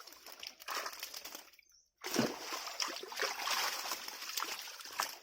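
Water splashing and sloshing as fish are caught by hand in shallow water, with many small splashes. A brief near-silent break comes just before two seconds in, after which the splashing is louder.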